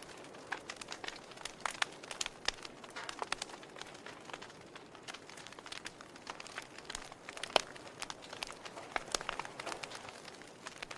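Wood fire crackling in a fireplace: irregular sharp pops and snaps over a soft steady hiss, with one louder pop about seven and a half seconds in.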